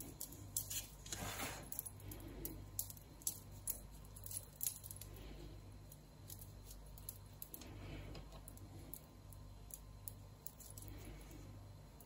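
Faint, scattered light metallic clicks and clinks as icing is spread over a tart with a spatula in a metal flan tin, over a steady low hum.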